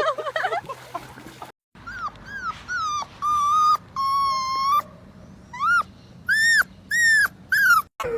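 A dog whining in a string of high-pitched, rising-and-falling cries, two of them held for nearly a second. A person's short "Oh" comes at the start.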